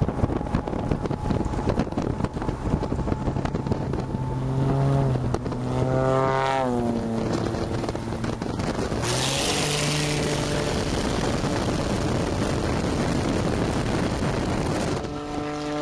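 Pitts aerobatic biplane's engine and propeller running close by, heard over heavy wind rush on a moving pickup truck. Its pitch climbs and then falls away around halfway through as the plane passes, and a brighter hissing rush sets in about nine seconds in.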